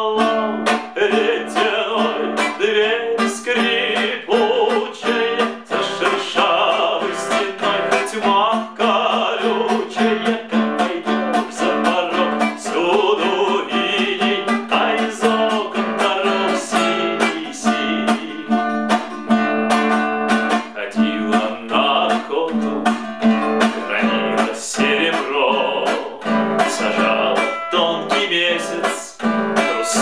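A man singing a song in Russian, accompanying himself on a nylon-string classical guitar with steady plucked and strummed chords.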